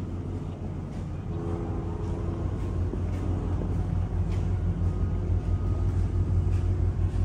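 Steady low mechanical hum and rumble of a large container ship's machinery, growing slowly louder, with a few faint clicks.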